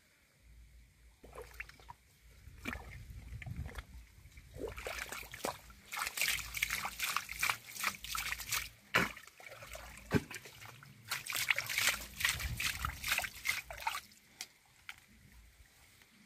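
Hands digging and scooping in wet mud and shallow muddy water, squelching and splashing in rapid splatters. The sounds come in two spells, the first from about five seconds in and the second from about eleven seconds.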